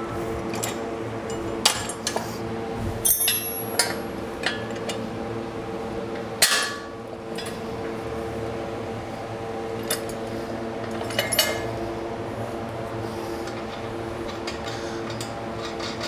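Steel bolts, nuts and the bench's mild-steel plates clinking and knocking as a bolt is pushed through aligned holes and a nut is started by hand. There are a handful of scattered clinks; the loudest is a clank about six and a half seconds in, with a brief ring after it.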